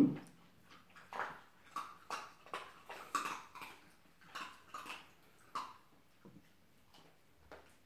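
Faint scattered light knocks and taps, a dozen or so over about five seconds, from a dog nosing a hard plastic treat-dispensing toy against a wooden floor.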